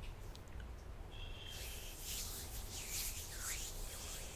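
Bare hands rubbing and sliding against each other, skin on skin, in several soft swishing strokes that grow stronger about a second and a half in.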